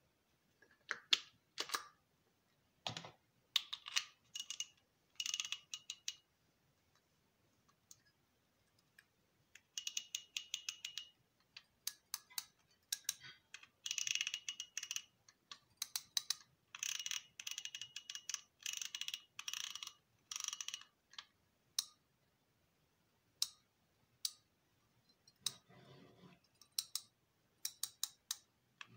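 Lineaeffe Vigor Power 6000 spinning reel clicking in rapid runs of small ratchet-like ticks as its spool and front drag are handled, with a short rustle near the end.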